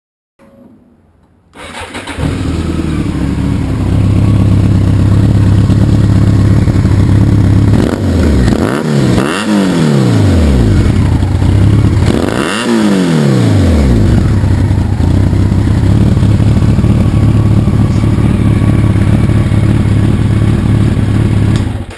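2002 BMW K1200RS inline-four motorcycle engine catching about two seconds in and then idling steadily, blipped up and back down a few times between about eight and fourteen seconds in. It runs through the stock muffler modified with a small bypass from the loud last chamber to the tailpipe, with the packing removed and the end cap still off.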